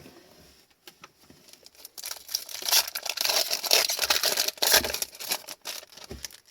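Trading cards being handled and flicked through, a dense rustle of card stock with many small clicks, loudest in the middle stretch.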